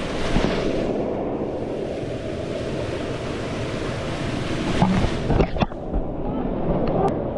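Steady rush of river water around the waterfall pools. There are a few sharp splashes or knocks about five seconds in.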